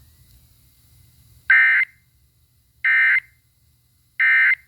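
Emergency Alert System end-of-message tones: three short, identical bursts of SAME digital data warble, each about a third of a second and a little over a second apart. They signal the end of the alert broadcast.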